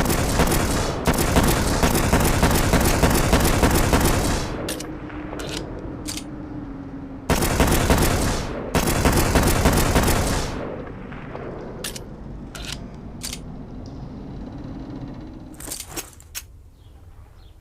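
Glock pistol gunfire sound effect: two long bursts of rapid, continuous fire, the second split by a short break, with single sharp shots between and after them.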